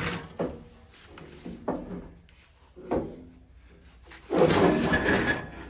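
A fuel tank scraping as it is shifted and pushed into position under the truck: a few light knocks, then one loud scrape lasting about a second near the end.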